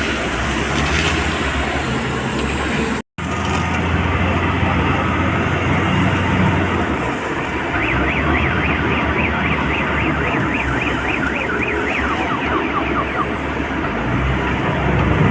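Diesel engines of heavy excavators and a wheel loader running steadily at work, with a low hum underneath. The sound cuts out briefly about three seconds in. In the middle, a rapid chirping warning tone repeats about five times a second for around four seconds.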